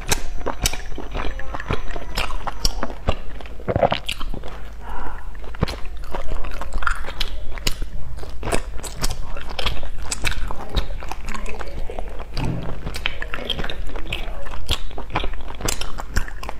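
Close-miked eating of a crunchy sesame-crusted pastry: bites and chewing with many sharp crackles of the crumbling crust throughout.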